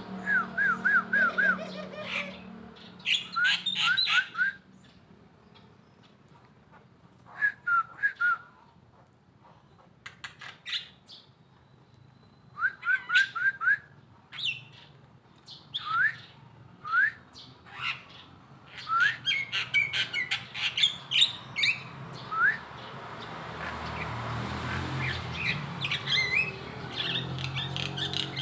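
Caged songbird singing in short bursts of quick, rising chirps with pauses between phrases; its voice is hoarse, which the owner puts down to the early morning.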